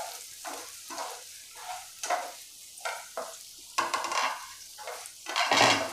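Spatula stirring raw potato chunks and browned onions frying in oil in a non-stick pan: short scraping strokes about two a second over a sizzle, with a longer, louder scrape near the end.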